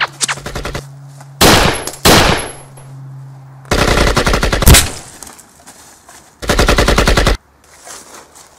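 Dubbed AK-47-style automatic rifle fire from a stock gunfire sound-effect pack: a few single shots, two louder blasts about a second and a half and two seconds in, then two long rapid bursts about four and six and a half seconds in.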